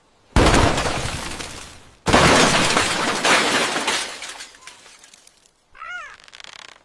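Two loud crashes of something breaking, like glass shattering, about two seconds apart, each fading away over a second or two. Near the end comes a brief, faint pitched squeak that rises and falls.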